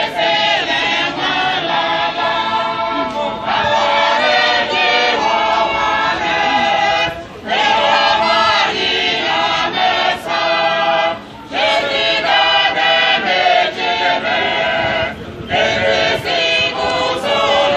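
A group of church members singing a hymn together in chorus, in long phrases broken by short pauses about every four seconds in the second half.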